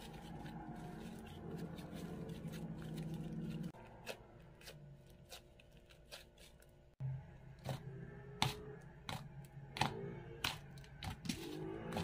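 Slime being stretched, squeezed and poked by hand, giving a run of small sticky pops and clicks that come thicker and louder in the second half.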